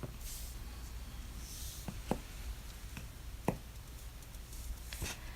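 A few light clicks and taps of small plastic toy pieces being handled, spaced irregularly over the few seconds, over a low steady room hum.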